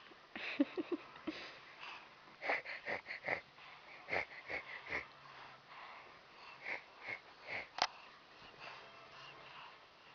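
Baby grinding his teeth: short squeaky creaks in quick runs of four or five, repeated several times.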